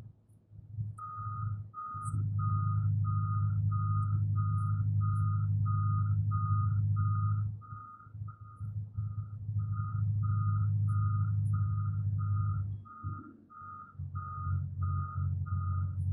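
Reversing alarm on a construction vehicle beeping steadily, about two beeps a second on one tone, starting about a second in, over the low hum of its engine running, which dips briefly twice.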